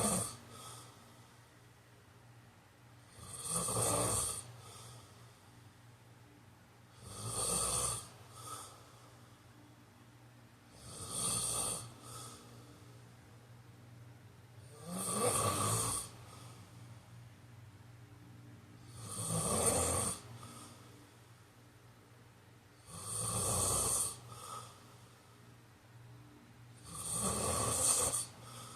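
A man snoring in slow, regular breaths: about eight loud snores, one roughly every four seconds, each lasting a second or so, some followed by a brief second sound. A faint steady low hum lies under the quiet gaps.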